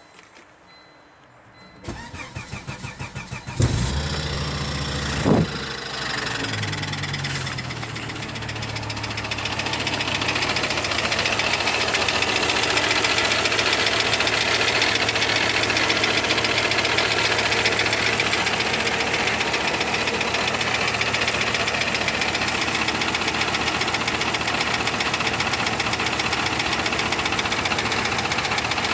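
Volvo 850R's turbocharged five-cylinder engine cranked over by the starter for about two seconds, catching with a brief rev, then settling into a steady idle with a fast, even knocking noise running through it.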